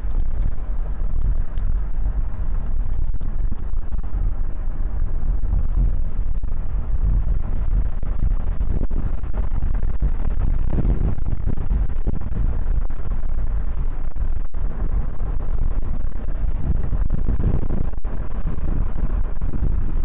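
Steady low rumble of engine and tyre noise inside a moving vehicle's cabin.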